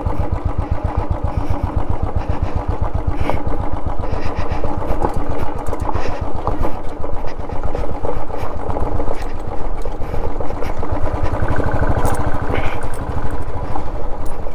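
Royal Enfield 350's single-cylinder engine running at low speed with its steady, even thump, picking up slightly about eleven seconds in, with scattered clicks and knocks from loose stones and gravel under the bike.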